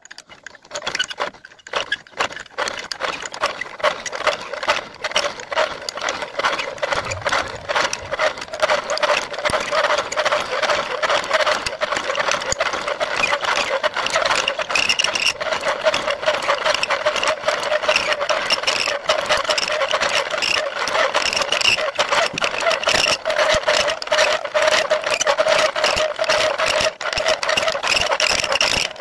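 Steel being cut on an improvised turning rig: the workpiece turns against a cutting tool, giving a steady metallic scraping with a fast chatter and a held pitched note. It starts at the very beginning and settles into an even run within about two seconds.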